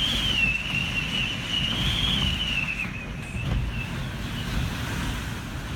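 Typhoon wind buffeting the microphone as a steady low rumble, with a high, slowly wavering whistle over it that fades out about three seconds in.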